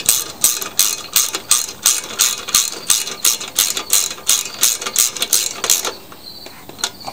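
Ratchet wrench with a 5/16-inch socket clicking as a bolt on a lawn mower's recoil starter housing is turned. An even run of sharp ratchet clicks, about three or four a second, stops about six seconds in.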